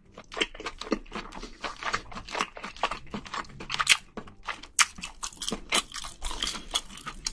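Close-miked chewing of a mouthful of spicy braised seafood: irregular mouth clicks and smacks, several a second.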